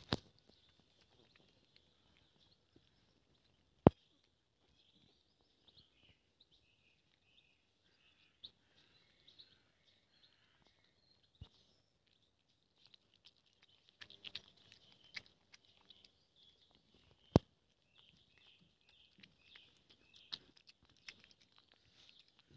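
A cat chewing and lapping wet food from a metal bowl, with soft scattered clicks of eating and a few sharp clicks, the loudest about 4 and 17 seconds in. Birds sing faintly and steadily in the background.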